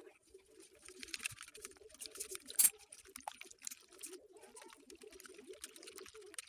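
Spiral wire whisk beating eggs in a stainless steel bowl: quick clicking of wire on steel with sloshing egg, and one louder knock a little past halfway.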